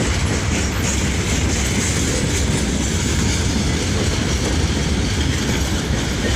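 Fully loaded BCNA goods train running past, a steady loud rumble of wagon wheels on the rails.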